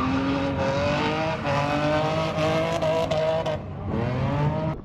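Infiniti G35 coupe drift car sliding sideways under high revs, tires squealing, with its engine note climbing steadily. Its pitch dips briefly about three and a half seconds in, then climbs again.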